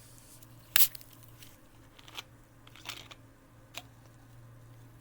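Seltzer can being handled: one sharp click about a second in, then three fainter clicks.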